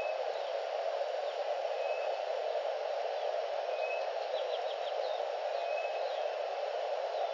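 Steady noise throughout, with faint, brief chirps and whistles of small birds scattered over it, including a quick run of four notes about halfway through.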